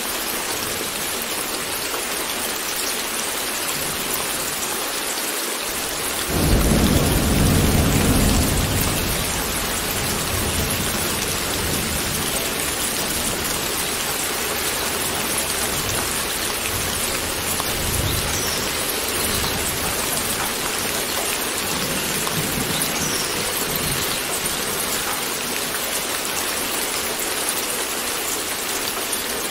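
Steady heavy rain, with a loud low rumble of thunder about six seconds in that fades over a few seconds, and fainter rumbles later on.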